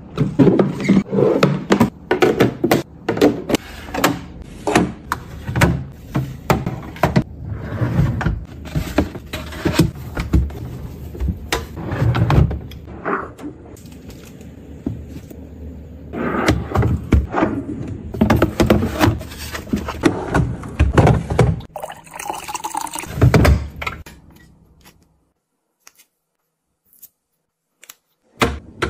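Groceries being packed into a refrigerator: lettuce set into a clear plastic storage bin and berries and plums placed into a fridge drawer, a long run of knocks, clatters and rustles against plastic. The handling sounds stop abruptly a few seconds before the end, leaving near silence.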